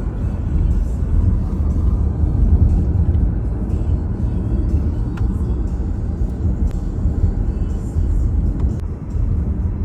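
Steady low rumble of a moving car: road and wind noise.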